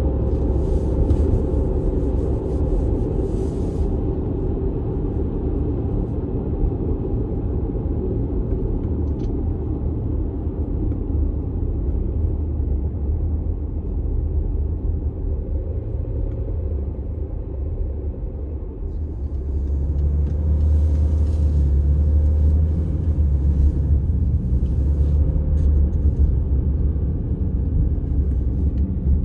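Steady low rumble of a diesel all-wheel-drive vehicle driving, engine and road noise together, growing louder about two-thirds of the way through.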